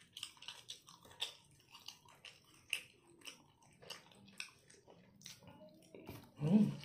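Close-up, wet chewing of pork belly adobo and rice, with many small smacking clicks of the mouth. A brief voice sound comes near the end.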